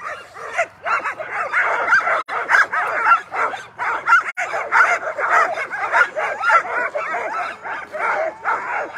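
A team of Alaskan husky sled dogs barking, yipping and whining all at once: a continuous, overlapping din of many excited dogs straining to run.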